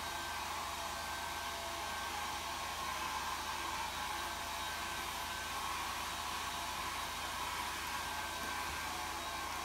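A steady, even whooshing noise with a faint hum, like a small electric blower or fan running without change.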